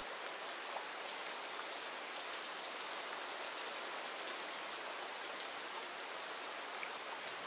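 Steady rain falling in a forest: an even hiss of many drops, with faint scattered drop ticks.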